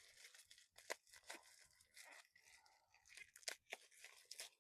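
Faint crinkling and tearing of packaging being opened by hand, with a few sharp clicks and snaps.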